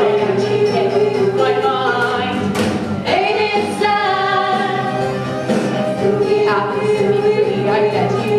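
Musical-theatre ensemble singing in chorus over instrumental backing, with long held notes.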